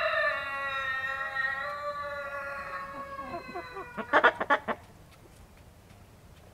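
A chicken's long drawn-out call, held for about four seconds and slowly falling in pitch. It ends in a quick run of about six short, loud clucks.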